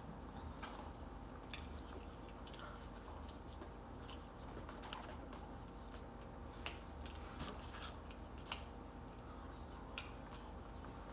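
Close-up chewing of chicken nuggets: soft wet mouth clicks and smacks every second or so, over a faint steady hum.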